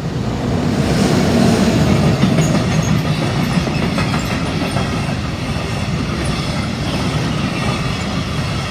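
A train hauled by DB class 139 electric locomotive 139 314 passing close by, with a loud rolling rumble of wheels on rail and clicks over the rail joints. It is loudest a second or two in and eases only slowly as the train runs past.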